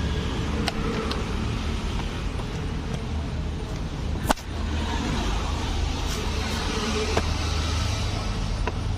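Plastic seat-switch trim being pressed and snapped into place on a car seat: a few light clicks and one sharp snap about four seconds in, over a steady low rumble.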